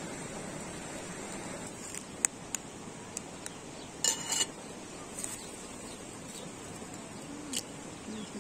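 A steady hiss for about two seconds, then light clicks and taps of a steel spoon and eggs against a steel plate, with a louder metallic clink and brief ring about four seconds in. Near the end an egg is cracked on the plate's rim with a single sharp crack.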